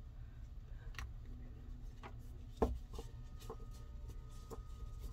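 A deck of hexagonal cardstock cards being gathered and tapped square on a cloth-covered table: scattered soft clicks and taps, with one sharper knock a little past halfway. A low steady hum runs underneath.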